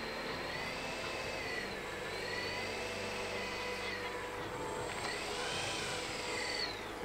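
Distant high-pitched whine of a model aircraft's engine, swinging up and down in pitch three times as the aircraft manoeuvres, with a faint rush of air behind it.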